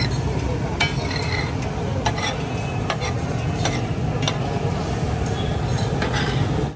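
Metal spatula knocking and scraping on a tawa griddle as daal is stirred and fried, with a steady sizzle and scattered sharp clicks. A steady low rumble runs underneath.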